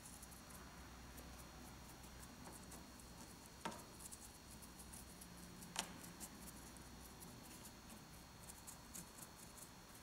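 Faint scratchy patter of a paintbrush dabbing and scrubbing acrylic paint onto a cast rock face, with two light clicks a couple of seconds apart near the middle.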